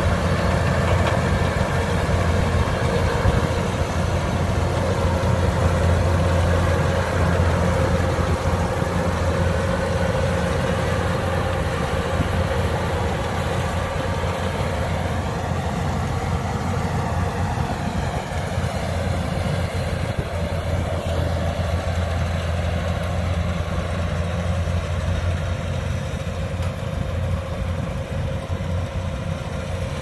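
Kubota DC-105X combine harvester's diesel engine running steadily as it harvests rice, growing slightly fainter as the machine moves away.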